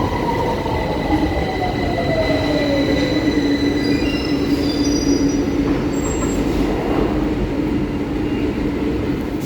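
London Underground 2009 Stock train slowing down: its traction motor whine falls steadily in pitch over the first few seconds over a constant rumble of wheels on rail, with a few brief high squeals from the wheels or brakes around the middle.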